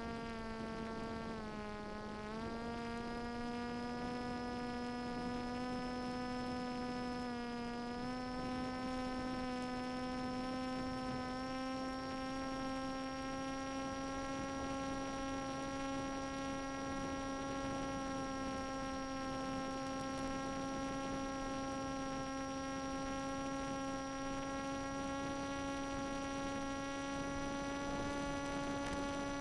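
Brushless outrunner motor and propeller of a Swift II flying wing droning steadily, heard through the onboard audio of the 5.8 GHz video downlink. The pitch dips about two seconds in and again near eight seconds, then creeps slowly higher as the throttle changes.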